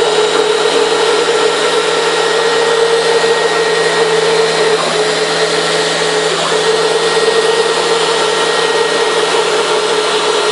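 CNC router spindle running at high speed, its bit milling a green foam block: a loud, steady whine over a hiss. The whine briefly weakens twice, around the middle.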